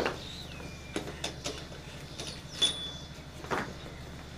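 Scattered soft knocks and scuffs of a cow being walked on a dirt yard, over a steady low hum, with a short falling whistle about half a second in.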